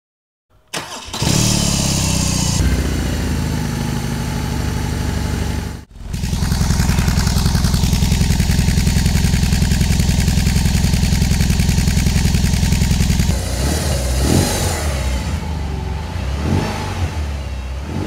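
BMW R18 motorcycle's 1,802 cc boxer twin being started about a second in, then running steadily with a low, even beat. There is a brief break near six seconds, and after about thirteen seconds the throttle is blipped twice, the revs rising and falling each time.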